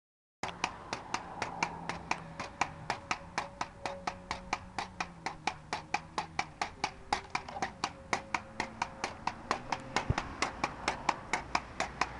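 A rapid, perfectly even clicking, about five clicks a second, with a faint low tune underneath.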